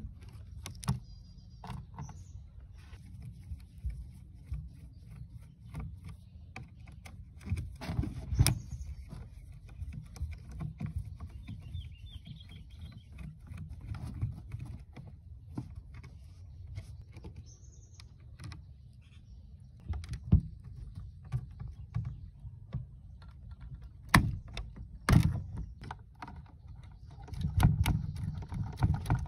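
Irregular metal clicks, knocks and scrapes of a rusty cassette deck's chassis, wires and parts being pulled apart by hand and with a screwdriver, with a few louder knocks about eight seconds in and near the end.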